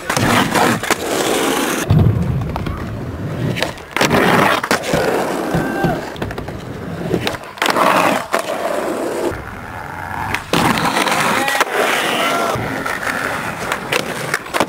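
Skateboards on concrete: wheels rolling, with the trucks and board grinding along concrete ledges. Several sharp clacks of tail pops and landings come through it.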